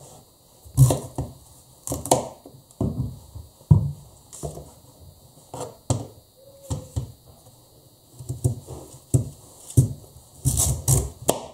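Kitchen knife chopping potatoes into small cubes and then cutting into a zucchini on a cutting board: irregular knocks of the blade against the board, one or two a second, with a quick cluster of cuts near the end.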